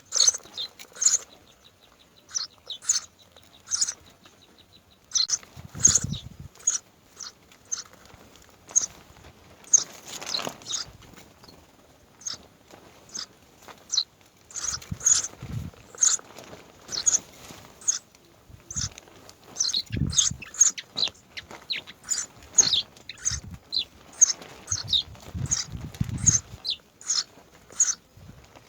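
Birds chirping over and over in short, high calls, with a fast even trill in the first few seconds. A few dull low thumps are heard among the calls.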